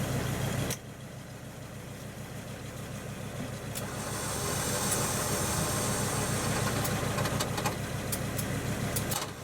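Diesel 4x4 engine running under load during a tow-strap recovery from mud, dropping back briefly in the first second and then building steadily over the next few seconds before holding level, with a few sharp clicks near the end.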